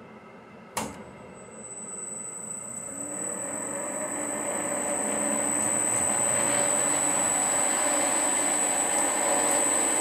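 Warco 280V metal lathe switched on with a click about a second in, then running with a steady high-pitched whine, its noise growing louder over the next few seconds as the spindle comes up to speed.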